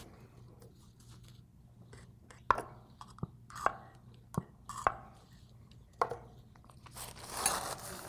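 Light scattered metallic clicks and taps as the parts of a dismantled lathe cross slide and a pump oil can are handled on a workbench, about seven over a few seconds, then a brief rustle near the end.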